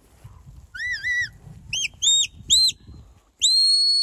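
Herding whistle commands to a working sheepdog: a wavering two-part note about a second in, three short arched chirps, then one long steady high whistle near the end.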